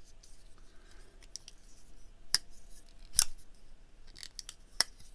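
Petrified Fish Scholar PFE04 folding pocket knife being opened and closed by hand, its blade snapping into place with a few sharp clicks, the loudest about three seconds in.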